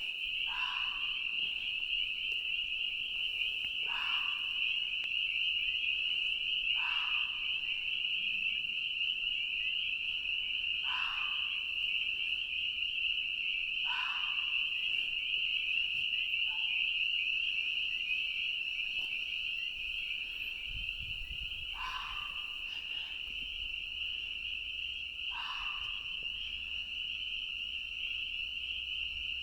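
Loud, steady chorus of spring peepers, with an unidentified animal giving a short yelling bark every few seconds and a longer pause midway. Its caller could not tell whether it was a fox or a coyote.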